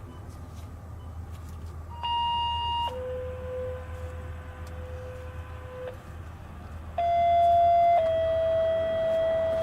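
Two-tone sequential paging tones, the kind of radio alert that sets off fire sirens. About two seconds in, a short high tone drops to a longer, lower tone lasting about three seconds. About seven seconds in, a second pair starts: a short tone steps down slightly to a long steady tone that is still going at the end.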